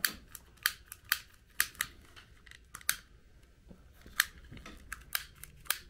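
Long-reach butane lighter's trigger igniter clicking over and over without catching: about a dozen sharp clicks at uneven intervals, roughly two a second.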